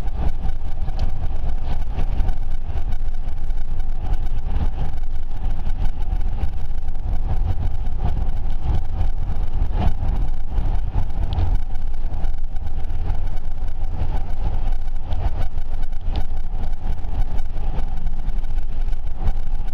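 Steady road and engine noise inside a moving car's cabin: a heavy low rumble with a steady mid-pitched hum.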